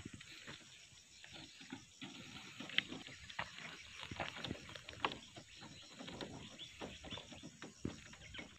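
Irregular light rustling and clicking as a wire-mesh fish trap is handled and set down and feet move over dry palm fronds and gravelly soil, with a faint steady high pulsing in the background.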